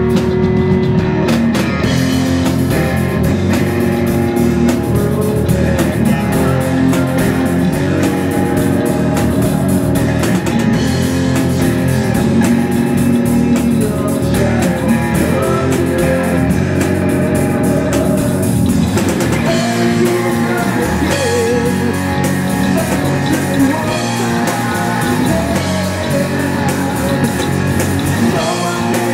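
Live rock band playing: electric guitars, bass and drum kit, with a lead vocal that is most prominent in the later part.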